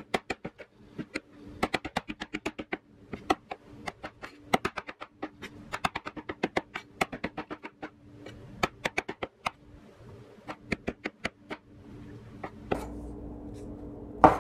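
Chef's knife slicing mushrooms on a wooden cutting board: runs of quick, sharp taps as the blade meets the board, with short pauses between runs. The taps thin out near the end.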